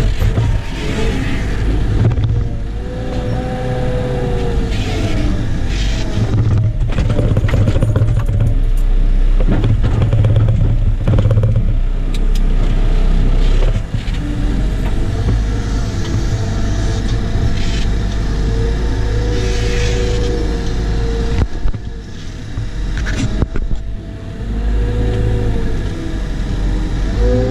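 Cat 914G wheel loader's diesel engine running, heard from inside the cab, its pitch rising and falling several times as the loader drives with a bucket of snow and lifts its arms. A run of knocks and rattles comes in the middle.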